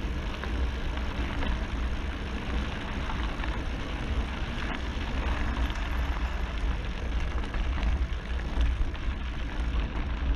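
Wind buffeting the microphone with a steady low rumble, over the hiss and crunch of Scott Spark Comp mountain-bike tyres rolling on a loose gravel road, with small scattered rattles.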